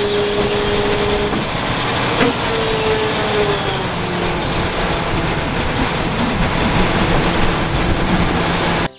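A MAN three-axle tipper truck's diesel engine running while the hydraulics raise the tipping body, with a steady whine that comes and goes. There is a single click about two seconds in, and birds chirp faintly.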